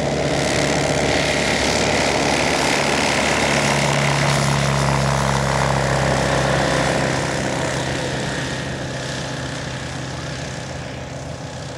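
Direct Fly Alto 100 light sport aircraft's propeller engine running on its takeoff run. It grows a little louder around the middle as the plane passes, then fades steadily as it lifts off and climbs away.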